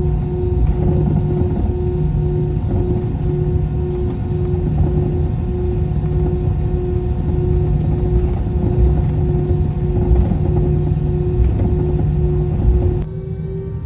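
Jet airliner cabin noise: a steady deep rumble of engines and airflow with a constant hum tone over it. About a second before the end it cuts off suddenly to a quieter passage with a slowly rising tone.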